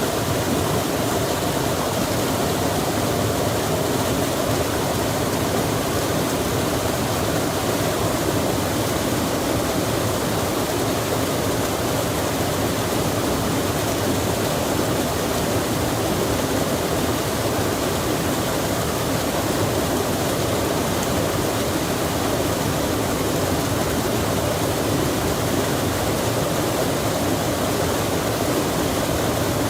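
Rain falling by a running stream: a steady, even rush of water that does not change.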